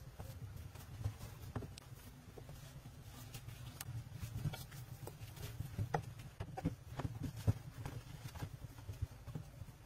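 Scattered light taps, scuffs and knocks of a barefoot person moving about and climbing on packed earth and mud walls, over a steady low rumble.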